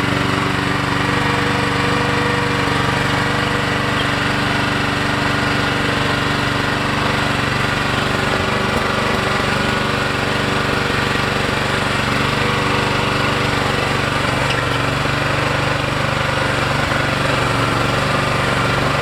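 Harbor Freight mini excavator's engine running steadily at a constant speed, with no change in pitch or load.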